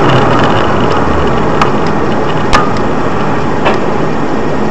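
Steady, loud noise of a vehicle on the move, with three short sharp clicks, the sharpest about two and a half seconds in.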